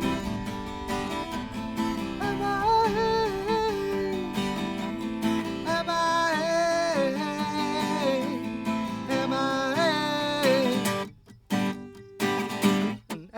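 Acoustic singer-songwriter music: strummed acoustic guitar under a sung melody with no clear words. It breaks off about eleven seconds in, leaving a few short fragments.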